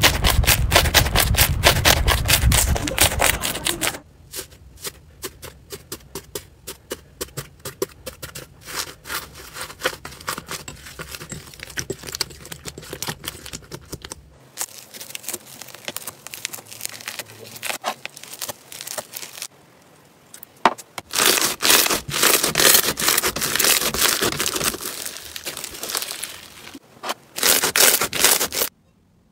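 Hands squeezing and kneading slime: dense crackling, clicking and squelching. The sound changes abruptly several times as one slime clip cuts to the next, and it is loudest at the start and again in the last third.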